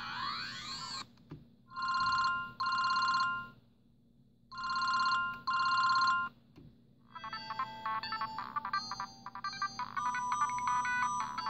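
Siemens C60 mobile phone's built-in ringtones: a sweeping electronic tone ends about a second in, then a trilling telephone-style ring sounds in two double rings, and a beeping electronic melody starts about seven seconds in.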